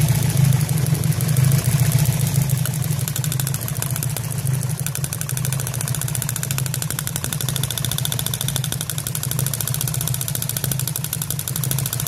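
Turbocharged Nissan KA24 four-cylinder engine idling steadily, with a rapid, even ticking of ignition spark jumping from a lifted plug wire to its spark plug. The engine has a misfire that the owner traces to a sticking number 4 injector.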